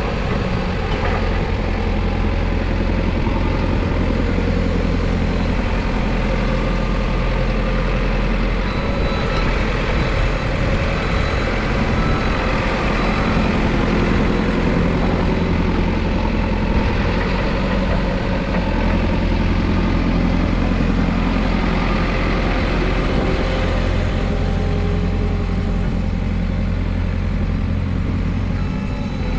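A 2010 JCB 4CX backhoe loader's diesel engine running steadily, its engine note shifting a few times partway through.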